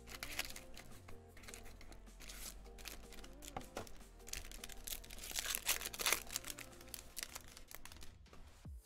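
Trading-card packaging crinkling and tearing as a box of cards is opened, over background music.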